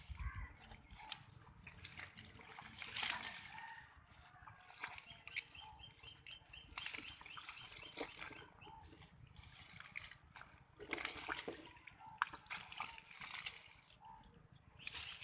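Irregular splashing and sloshing in shallow muddy water, with short bird chirps now and then.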